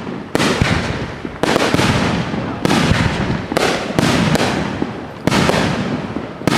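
Fireworks display: aerial shells bursting in quick succession, about eight loud bangs in six and a half seconds, each fading out slowly before the next.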